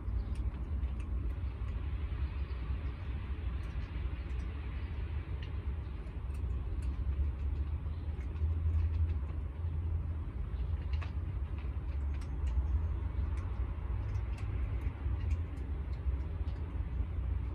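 Steady low rumble of distant street traffic, with a passing-vehicle hiss swelling a few seconds in and scattered faint ticks.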